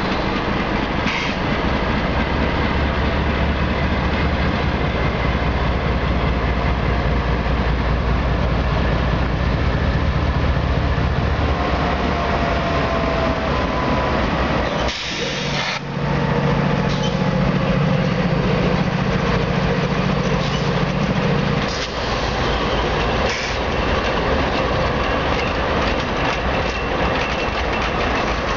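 Three CSX GE diesel-electric locomotives, an ES44DC and two C40-8Ws, passing close by with their diesel engines running. The engine drone changes as the units go past. A heavy low rumble in the first part gives way after a brief dip, about halfway through, to a steadier drone from the trailing units.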